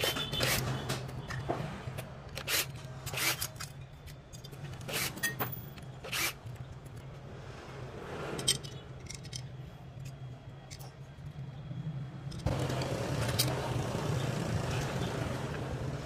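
Irregular clicks, knocks and scrapes of metal and plastic parts being handled and fitted by hand onto a partly dismantled Stihl 036 chainsaw, over a steady low hum; about three-quarters of the way through, a steady hiss joins in.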